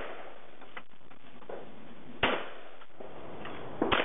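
A single shotgun shot fired at a clay target about two seconds in, sharp and brief; two quick sharp clicks near the end.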